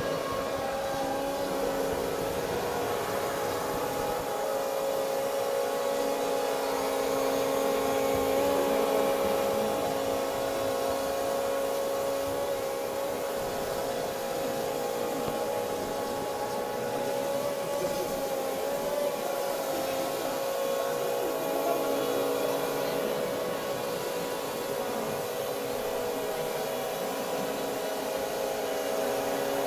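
Multirotor drone built as a flying bathtub, hovering and flying; its propellers give a steady whirring hum that wavers slightly in pitch as it manoeuvres.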